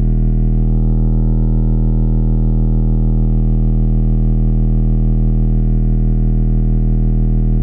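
Dayton Audio Ultimax 8-inch subwoofers in a sealed box playing a loud, steady deep bass tone. The camera mic overloads on it, adding a distorted buzz of overtones; in the room it plays clean.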